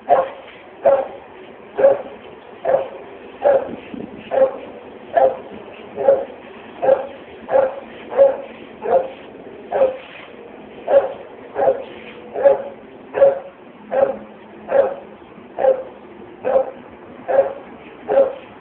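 A dog barking over and over at a steady pace, a little over one bark a second.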